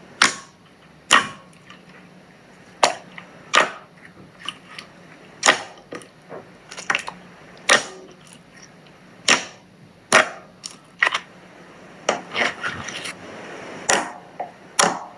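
Green slime being pressed and stretched by hand, giving sharp popping clicks as air pockets burst, at irregular intervals about one or two a second, with a softer squishing stretch a little before the end.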